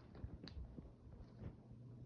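Near silence: room tone with a faint steady low hum and a few soft clicks.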